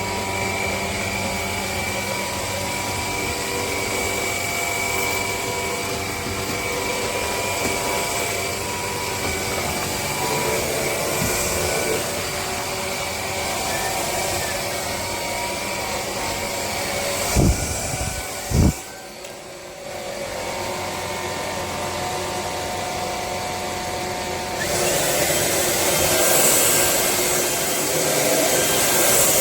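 Dreame Z30 cordless stick vacuum running with a steady motor whine. Two loud knocks come about two-thirds of the way through, followed by a brief drop in the sound. In the last few seconds it runs louder with more rushing air.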